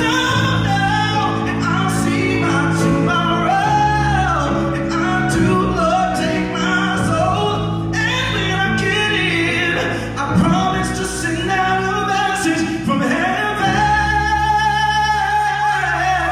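Live male lead vocal sung into a handheld microphone, with long sliding runs over held backing chords, ending on a long sustained note.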